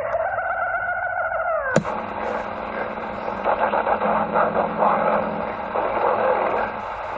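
CB radio receiver audio: a pitched tone slides downward and ends in a sharp click, then crackly static over a steady low hum.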